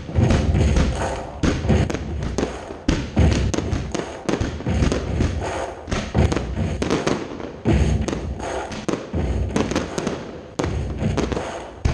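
Fireworks display firing a rapid barrage: dozens of launch thumps and bursts from comets, mines and aerial shells in quick succession, with crackle between them.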